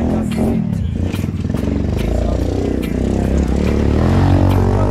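Turbocharged 125cc four-stroke pit bike engine running as the bike rides past, revving up with a rising pitch about three and a half seconds in.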